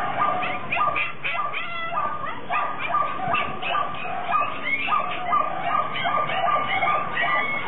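A large litter of puppies whimpering and yipping all at once: a constant, dense chorus of overlapping high-pitched cries.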